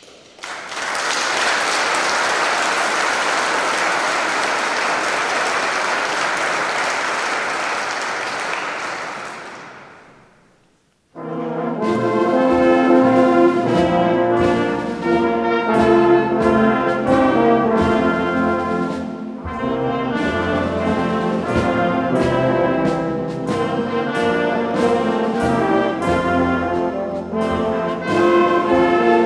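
Audience applause for about ten seconds, fading out. After a brief gap, a wind band of brass, clarinets and saxophones starts playing and carries on.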